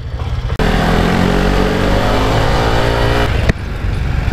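Honda CT125's small single-cylinder engine accelerating as the motorcycle rides off, heard from the rider's seat with wind and road noise. There is a sharp click about three and a half seconds in, after which the engine runs on more steadily.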